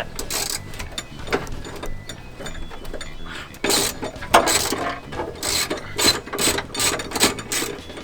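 Socket-wrench ratchet clicking in uneven runs of strokes as a bolt that has just broken loose is backed out.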